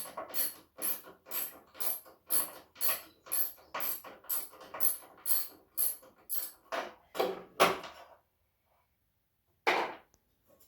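Hand ratchet wrench working bolts loose, clicking in quick repeated strokes about twice a second; after a break, one more stroke near the end.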